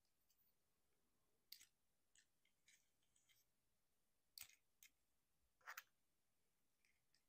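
Faint plastic clicks and snaps from a Transformers Legacy United Sunstreaker action figure as its joints and parts are moved and pegged into place by hand, finishing its change from racecar to robot mode. There is a handful of scattered clicks, and the sharpest come late.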